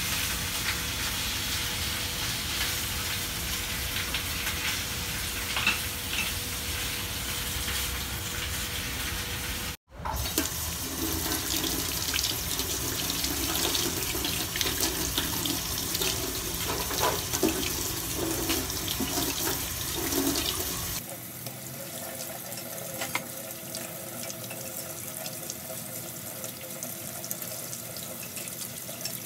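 Kitchen tap water running and splashing into a stainless steel sink as a fennel bulb is rinsed under the stream by hand. The sound is a steady rush that breaks off briefly about ten seconds in and is quieter over the last third.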